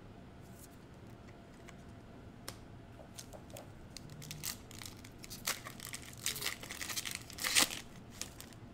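Foil wrapper of a 2021 Prizm Basketball trading card pack being torn open and peeled back by hand. A few faint clicks at first, then crinkling and tearing that grows denser and louder through the second half, loudest shortly before the end.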